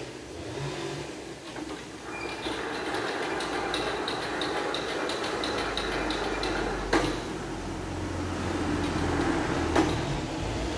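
Horizontal band sawmill running: machine noise builds up about two seconds in with a quick run of light ticks, about four a second, and a low hum joins about halfway. Two sharp knocks, one about seven seconds in and one near the end.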